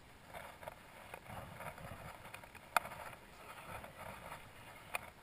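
Faint, uneven background noise with two sharp clicks about two seconds apart.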